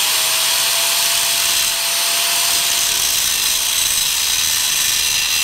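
Angle grinder cutting through a cast aluminum intake manifold: a loud, steady grinding hiss from the wheel in the metal, with a faint motor whine that fades out about three seconds in.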